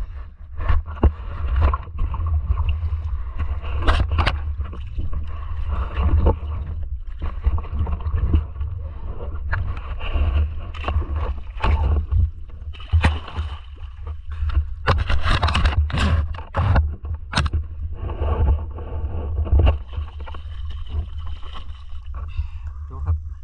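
Water splashing and sloshing around a camera held half-submerged at the surface while someone swims through shallow water, with many irregular splashes over a constant low rumble of water buffeting the microphone.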